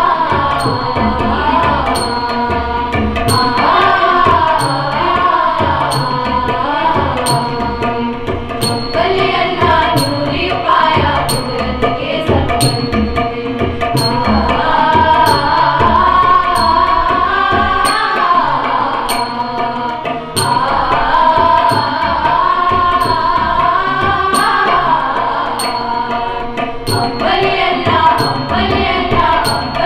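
Sikh shabad kirtan: voices singing a devotional hymn together to a steady tabla accompaniment.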